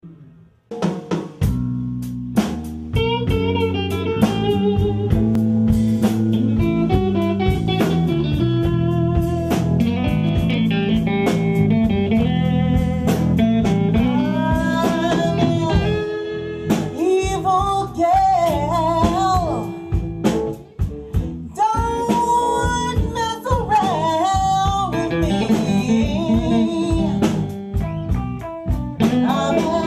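Live blues band playing: drum kit and electric guitar kick in about a second in, and a woman starts singing about halfway through.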